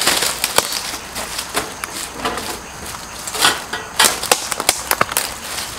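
Bundle of thin dry branches handled and dragged over gravel and dry fallen leaves: rustling and scraping with irregular sharp snaps and clicks, several in quick succession about four seconds in.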